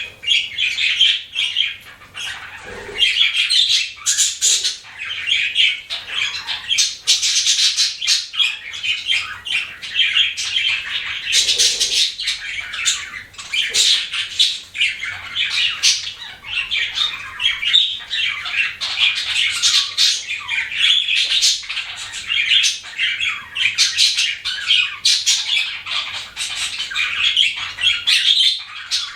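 Budgerigar chirping in a rapid, unbroken stream of short high calls.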